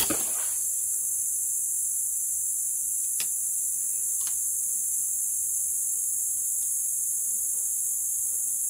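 Dense chorus of rainforest insects, a steady high-pitched drone. Two faint clicks come about three and four seconds in.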